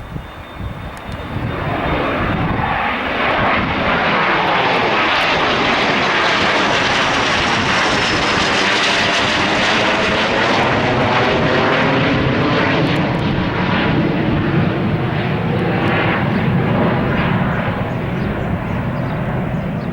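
Raytheon Hawker 800XP business jet's twin turbofan engines at takeoff power, swelling about a second and a half in and staying loud as the jet goes past. A high whine falls in pitch around the middle as it passes.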